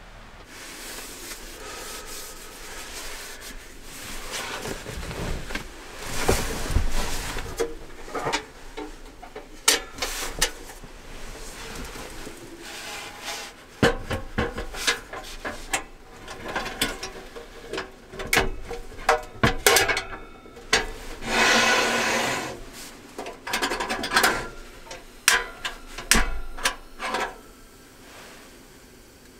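A portable cassette gas heater being lifted, set down and handled on a wooden table: scraping and rubbing of its metal body against the wood, with many irregular sharp clicks and knocks as its parts are worked.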